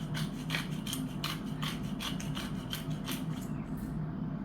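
Pepper mill being twisted to grind black pepper: a rasping grind in short strokes, about three a second, that stops shortly before the end, over a steady low hum.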